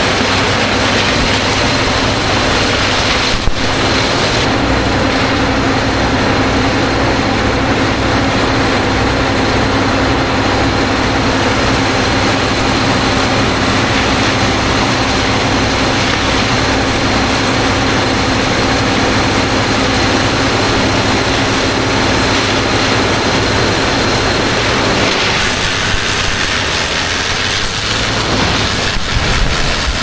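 A 525-horsepower wood chipper running steadily under load as it chews through logs, its engine drone mixed with the constant rush of chips blown out of the discharge.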